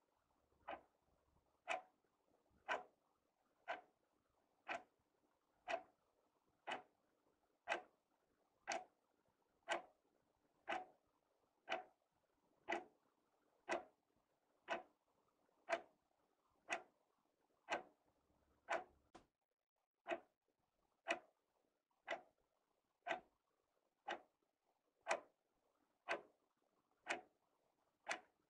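Wall clock ticking steadily, one sharp tick about every second.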